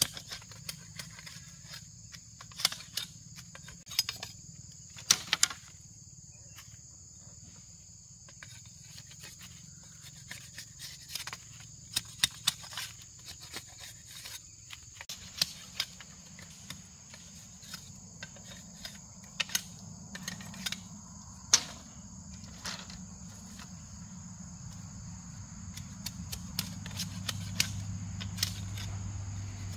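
Machete striking and splitting a bamboo pole in irregular sharp knocks, over a steady high buzz of insects.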